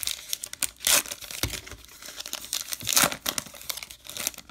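Baseball card pack wrapper being torn open and crinkled: a run of crackles, loudest about one second and three seconds in.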